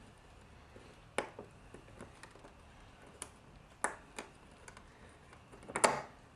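Plastic push-pin retainers on a car's front bumper being pried and popped out, giving a few sharp plastic clicks, the loudest near the end.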